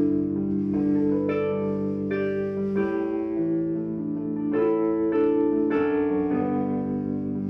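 Music: an electric keyboard playing a slow instrumental passage, chords and single notes struck clearly and left to ring.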